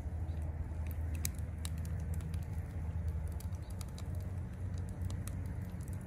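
Bacon frying in fat in a cast-iron skillet over a wood fire: a steady sizzle with scattered small pops and crackles of spitting fat, over a constant low rumble.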